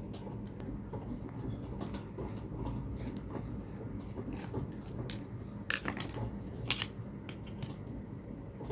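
Hand tools clicking and clinking against the metal casing of a submersible pond pump as it is taken apart, with a few sharper knocks between about five and seven seconds in.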